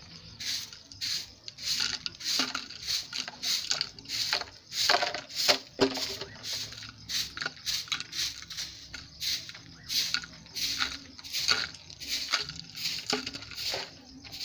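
Short hand broom sweeping bare, dry earth with brisk, rhythmic scratchy strokes, about two a second.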